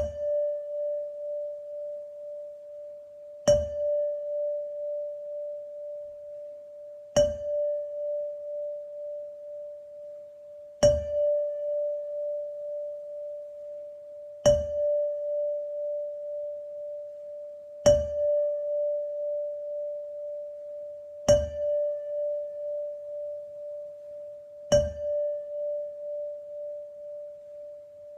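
A tuned percussion instrument struck with a soft ball-headed mallet, sounding the same single note about every three and a half seconds. Each strike rings on with a slow wobble in loudness and fades before the next.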